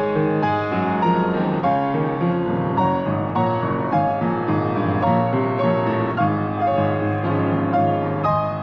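Piano playing an instrumental piece: a steady run of single notes over sustained chords.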